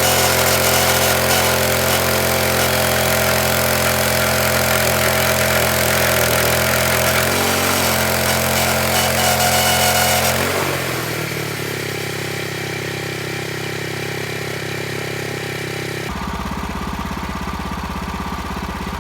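An engine running steadily at high speed, then throttled down about ten seconds in, its pitch sliding down to a slower, quieter idle. Near the end it turns to a lower, rougher rumble.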